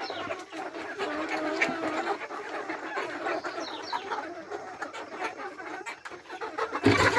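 A flock of Embrapa hens clucking and calling over their feed, many short calls overlapping. A brief loud scuffing noise comes near the end.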